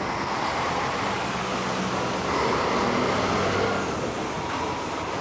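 Street traffic noise with a motor vehicle engine running, swelling a little in the middle and then easing off.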